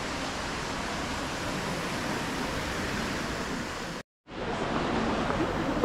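Steady rushing outdoor street ambience, cut off abruptly for a moment about four seconds in, then back with faint voices in it.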